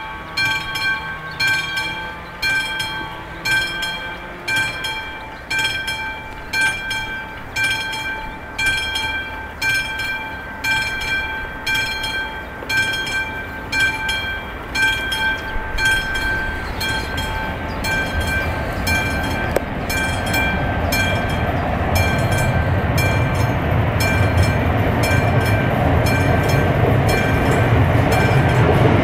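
Level-crossing warning bell on an AŽD 71 crossing signal ringing in a steady rhythm, about three strokes every two seconds. From about halfway an approaching electric locomotive's rumble builds and keeps growing louder, drowning out the bell near the end.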